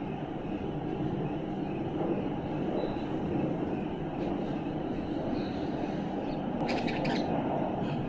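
Steady low rumble of a passing train or other heavy vehicle, with a few faint, short budgie chirps over it and a brief scratchy budgie chatter about seven seconds in.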